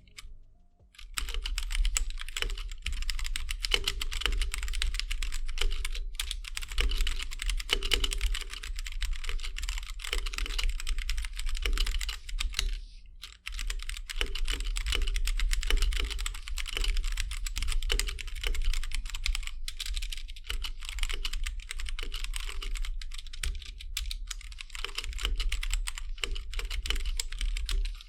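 Gamakay K87 mechanical keyboard with Gateron Brown switches and stock ABS keycaps, typed on fast and continuously, starting about a second in, with a brief pause about halfway.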